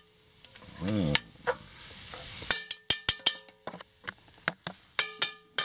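Bacon, onions and garlic sizzling in a cast-iron Dutch oven while a wooden spatula stirs and scrapes through them. From about halfway there is a quick run of sharp clicks and knocks with a short metallic ring.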